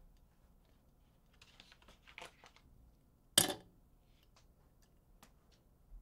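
Ice cubes settling and shifting in a glass mason jar: faint crackling, then one sharp clink of ice against the glass about three and a half seconds in, followed by a few small ticks.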